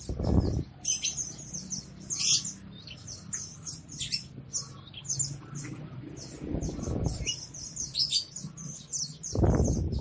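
Many caged small songbirds chirping at once: dense, overlapping high, short chirps and tweets. A low muffled rush comes three times, at the start, midway and near the end.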